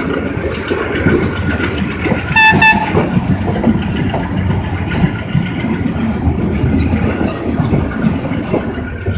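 Wheels of two passenger trains clattering and rumbling on the rails as the trains pass each other on adjacent tracks. About two and a half seconds in, a train horn gives two short blasts.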